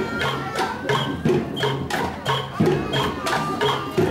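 Bamboo kentongan tubes struck with sticks in a quick, even marching rhythm, over a low, drum-like beat.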